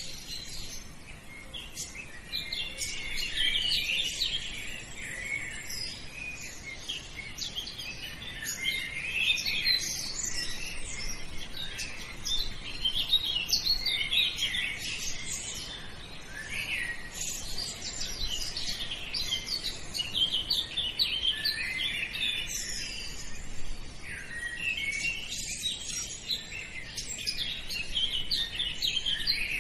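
A chorus of small birds chirping, many short high calls overlapping almost without pause.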